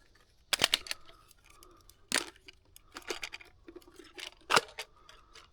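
Irregular sharp plastic clicks and knocks from handling a trail camera on its quick-release tree mount, as it is adjusted and fitted.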